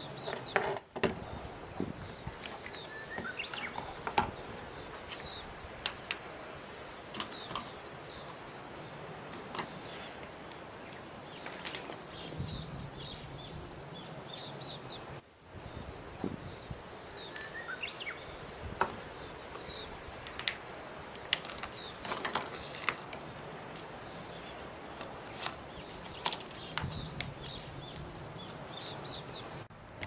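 Outdoor background noise, steady, with birds chirping now and then and a few light clicks.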